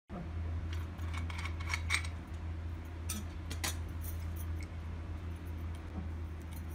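Light metallic clicks and clinks of small brass oil lamps being handled, several in quick succession in the first two seconds and a few more a little past three seconds, over a steady low hum.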